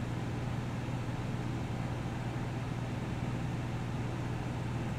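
Steady low hum with an even hiss over it: constant background room noise.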